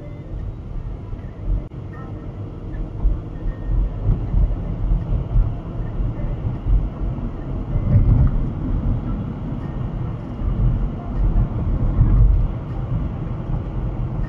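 Low rumble of moving vehicles heard from inside a car's cabin, with a streetcar running alongside on its rails. The rumble swells and eases, loudest about eight and twelve seconds in.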